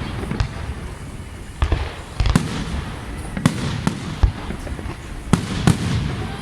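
Fireworks display with shells bursting in sharp, irregular bangs, about eight in six seconds, some in quick pairs, over a continuous low rumble.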